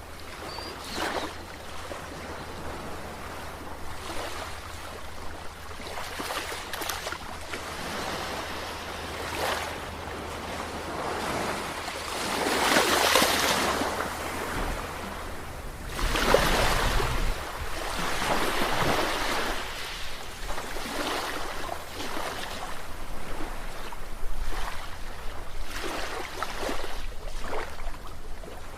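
Sea waves washing and breaking, a continuous wash of water with repeated surges. The biggest swells come about twelve and sixteen seconds in.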